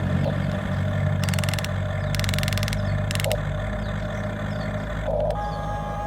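Vehicle engine running steadily, with three short spells of rapid high ticking in the first half.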